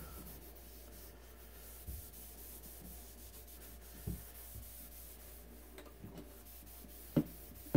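Felt rag wiped back and forth over a Bakelite radio cabinet, spreading a wipe-on finish: a faint scrubbing, with a few soft knocks about two, four and seven seconds in.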